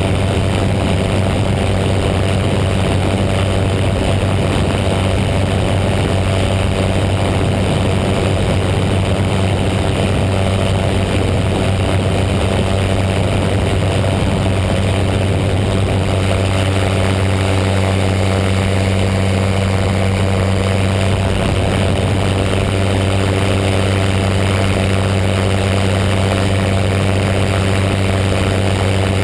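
Paramotor engine and propeller running steadily in flight: a constant, loud drone with an even pitch throughout.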